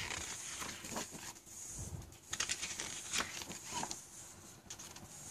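Paper calendar pages being turned by hand: light rustles and crinkles of the sheets, a little busier in the middle.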